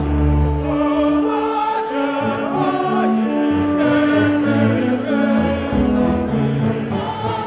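Choir singing in slow, long held notes over a low sustained accompaniment.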